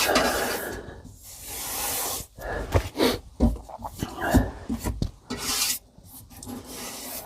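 Scraping and rubbing against the wooden edge of the worktop cutout, in several swishes of about a second each, with a few short knocks between them.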